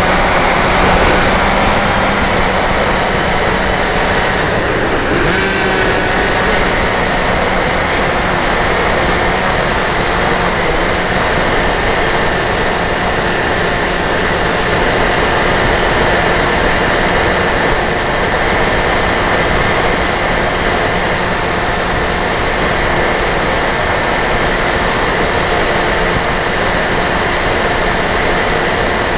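Steady rush of wind mixed with the drone of a Dynam Hawk Sky foam RC plane's electric motor and propeller, picked up by the onboard camera in flight. A few faint steady tones ride on top of the noise.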